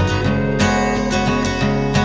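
Background music led by a strummed acoustic guitar, with a steady rhythm of strokes.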